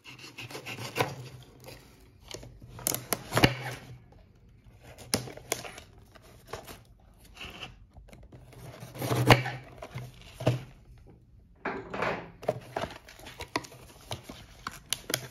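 A knife blade slicing and scraping through a thin cardboard box, in irregular strokes with a few sharp knocks; from about twelve seconds in, cardboard flaps being pulled apart and rustling.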